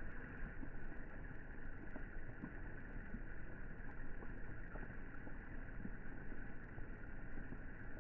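Rain falling on the surface of a swimming pool: a steady patter of drops on water, with many small faint drip ticks.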